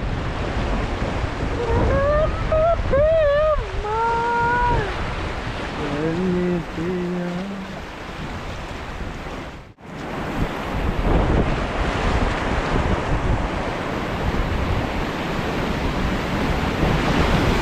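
Rushing river water and wind buffeting the microphone, a steady noisy roar. A voice calls out with rising and falling pitch about two to five seconds in, followed by two short steady tones around six to eight seconds.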